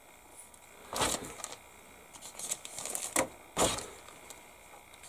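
Clear plastic bag crinkling in irregular bursts as a plastic model-kit sprue is handled and slid back into it; the loudest rustles come about a second in and again around three to three and a half seconds in.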